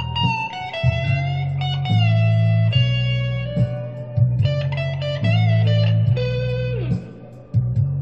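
Electric guitar playing an improvised blues solo in B: single-note phrases with string bends and vibrato over a low accompaniment. About seven seconds in, a note slides down and the playing dips briefly before picking up again.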